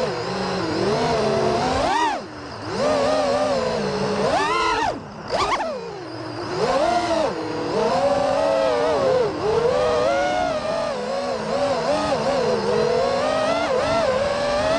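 5-inch FPV freestyle quadcopter's brushless motors and propellers whining, heard from the onboard camera, the pitch rising and falling constantly with the throttle. The sound dips briefly about two seconds in and again about five seconds in, each time surging back with a fast rising whine.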